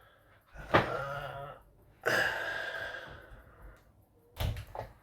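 Parts of a watchmaker's staking set being handled: a click about half a second in, a longer scraping rattle about two seconds in that fades out, and a knock near the end.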